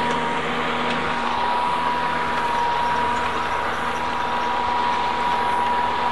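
Toro 60V Max Super Recycler battery-electric lawn mower running: its motor and spinning blade make a steady whir with a constant high whine.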